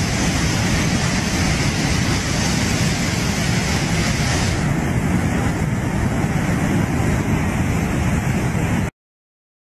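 Muddy flash-flood torrent rushing: a loud, steady wash of churning water. Its hiss thins about four and a half seconds in, and the sound cuts off suddenly near the end.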